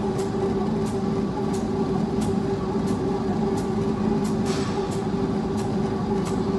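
Treadmill running with a steady motor and belt whine, with sharp footfalls about every two-thirds of a second from a runner on a below-knee prosthetic leg.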